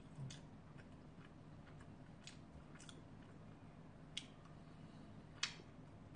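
Faint chewing and mouth sounds of a person eating tteokbokki, with a few short, soft clicks scattered through, the clearest about five and a half seconds in.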